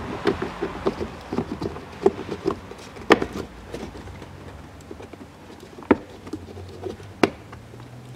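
Plastic cover of an Audi Q7's cabin air filter housing being fitted into place: a quick run of light plastic clicks and knocks for the first couple of seconds, then a few sharper single clicks.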